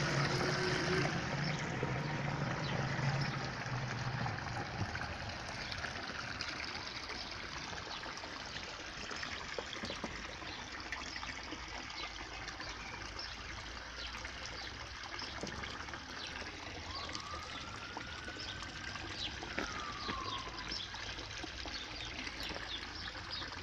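Water pouring and splashing from a homemade venturi pond filter: the jet spraying inside the filter barrel, then the return pipes splashing into the pond. It is louder for the first few seconds and then settles to a steady, quieter trickle.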